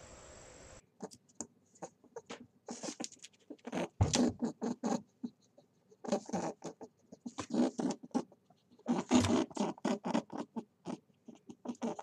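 Rabbit chewing a carrot: quick, crisp crunching chews in runs, with short pauses between them, starting about a second in.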